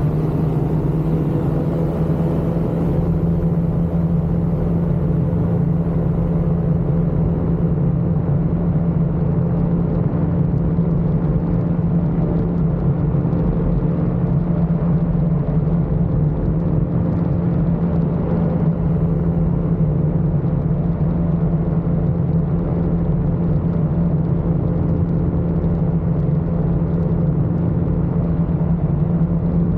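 Ultralight aircraft's engine and propeller running at a steady, even pitch with a constant rushing noise beneath, holding the same power throughout.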